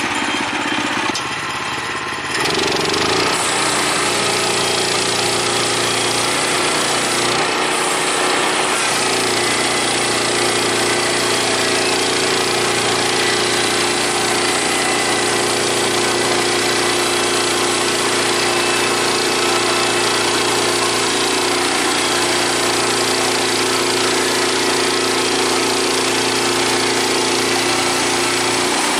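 Gas engine of a portable bandsaw sawmill running steadily. It gets louder about two seconds in, then holds an even, continuous drone.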